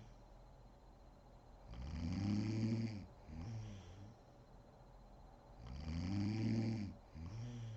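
A woman snoring in deep sleep: two long snores about four seconds apart, each followed straight away by a shorter, quieter one, with quiet gaps between.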